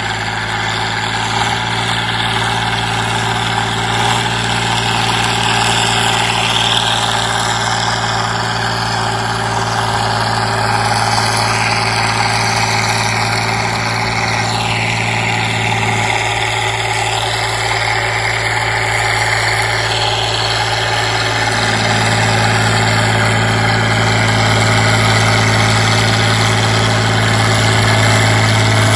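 Fiat tractor's diesel engine running steadily as it pulls a rotavator through ploughed soil, growing gradually louder as the tractor comes closer.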